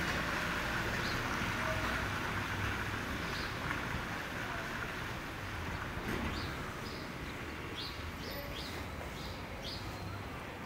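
Small birds chirping in the background: short high chirps, a quick run of them in the second half, over a steady background hiss.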